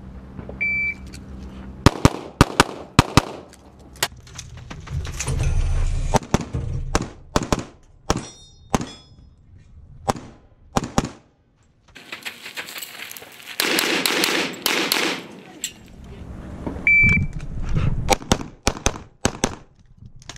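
An electronic shot timer gives one short beep, then a competition pistol fires quick strings of shots with short pauses between them. Near the end the timer beeps again and more rapid shots follow.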